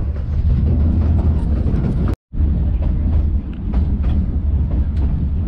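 Passenger coach of a 3-foot narrow-gauge train rolling along the track: a steady low rumble with scattered clicks from wheels and rail. The sound cuts out for a moment about two seconds in.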